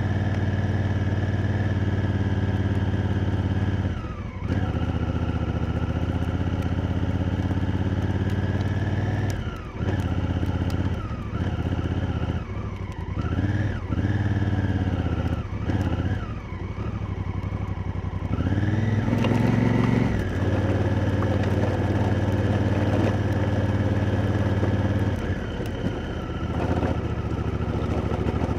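Honda Africa Twin's parallel-twin engine running under way. Its note drops and picks up again a few seconds in and several times through the middle as the throttle is closed and reopened, rises about two thirds through as the bike accelerates, then holds steady.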